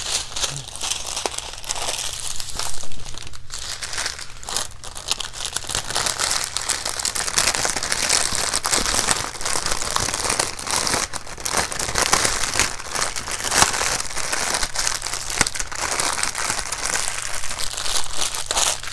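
Small plastic bags of diamond painting drills crinkling and rustling as they are handled, a continuous crackle with many small clicks.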